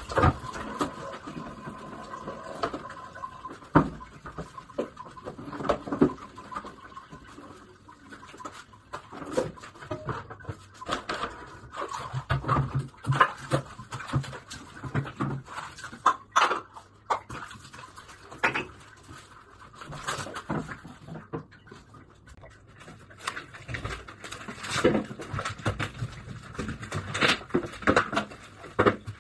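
Irregular knocks, clicks and clatter of household items being handled at a bathroom sink, including a plastic basin.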